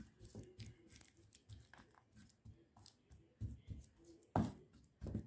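A spoon scraping and pressing sticky caramelized peanut mixture against a greased metal tray, spreading it thin before it hardens: faint, irregular scrapes and clicks, with a louder knock about four seconds in.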